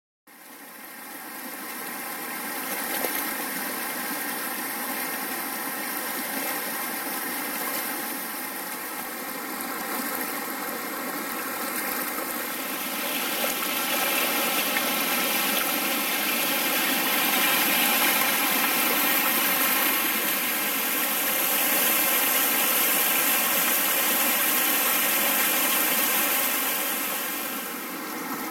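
Shallow mountain stream running over rocks, a steady rushing that fades in at the start and grows louder about halfway through.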